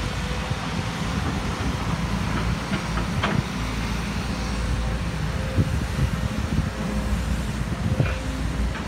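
Volvo EC200 crawler excavator's diesel engine running steadily under load as it digs, with a few sharp clanks of the bucket striking stony soil.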